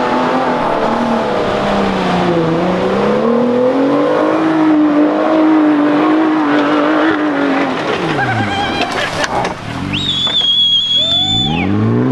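4WD engine revving under load, its pitch dipping and then climbing and holding, while the vehicle works its way out of a bog. About two-thirds of the way through it gives way to quick sweeping tones and a high steady tone lasting just over a second.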